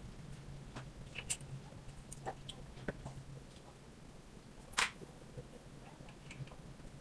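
Light clicks and taps of small metal parts being handled and fitted at a folding bike frame's pivot joint, scattered irregularly, with one sharper click about five seconds in.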